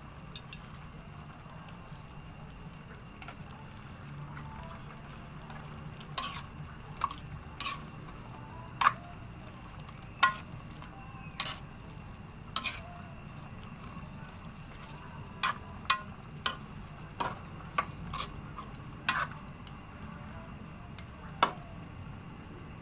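Metal spatula stirring chicken pieces in a metal wok, knocking and scraping against the pan in about fifteen sharp clinks that start about six seconds in, over a steady low hum.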